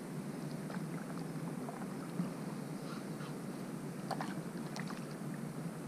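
Steady low drone of boat motors on the river, with a few light clicks and taps about four seconds in.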